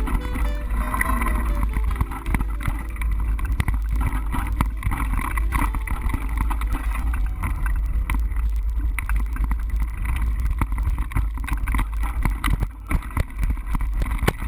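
Mountain bike riding a dirt trail: wind buffeting the on-bike camera microphone as a deep steady rumble, with frequent knocks and rattles from the bike over rough ground.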